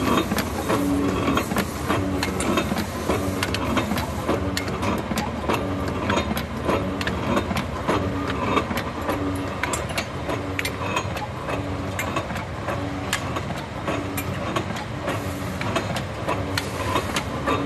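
Steel O-ring making machine (wire ring bending machine) running: its electric motor and belt-driven pulleys make a steady mechanical noise. Over it the forming head clatters in a regular beat a little more than once a second, with sharp metallic clicks.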